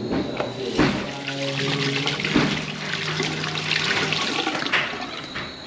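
Toilet flushing: a rush of water through the bowl, with a steady low tone under it for a few seconds in the middle.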